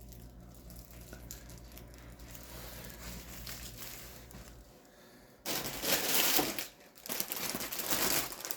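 Plastic grocery packaging crinkling as produce is handled, in two loud rustling spells after a few quiet seconds.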